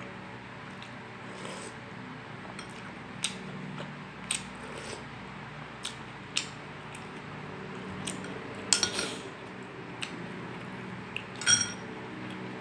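Eating sounds: a metal spoon clinking against a glass bowl of sinigang soup and the dinner plate, a scattering of sharp clicks with a louder cluster about nine seconds in and a ringing clink near the end, between them quiet chewing and hand-eating sounds.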